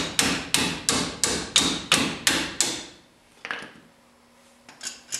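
A hammer taps metal-on-metal against channel-lock pliers gripping the head of a stuck rear leaf spring bolt, coaxing the bolt out. There are about eight quick, even taps, about three a second, stopping about three seconds in, followed by a single softer knock.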